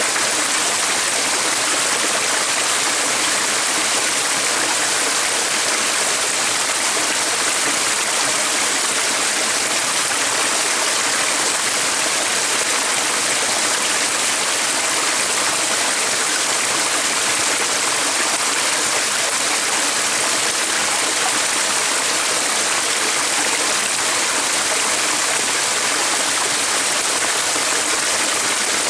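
Running water of a stream, a steady, even rush with no pauses.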